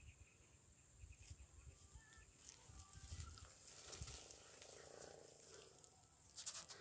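Near silence: a faint, uneven low rumble of wind and handling noise on a phone microphone as it is moved about, with a brief soft rustle near the end.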